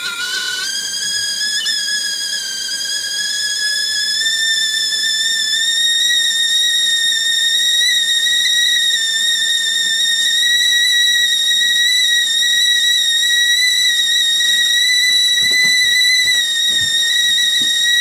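The whistle of a Tefal C7921024 stainless-steel stovetop kettle sounding as the water comes to the boil. It is one clear steady note that rises slowly in pitch and grows louder over the first several seconds, then holds.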